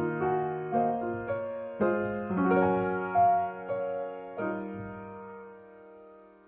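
Background music: soft piano playing a slow melody over chords, ending on a held chord that fades away.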